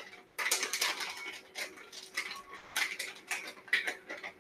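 Plastic bag of shredded mozzarella crinkling in quick, irregular crackles as it is handled and shaken over a skillet.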